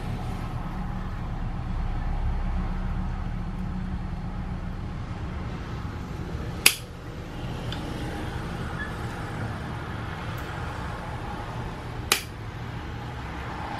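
Two sharp metallic clicks, about five seconds apart, as needle-nose pliers squeeze a wrist-pin snap ring and work it into its groove in a piston, over a steady low hum.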